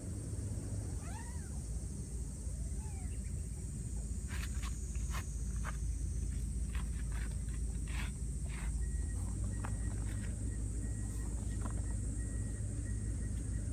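A steady low outdoor rumble. Early on an animal gives two short calls that rise and fall in pitch. In the middle comes a run of short clicks and rustles.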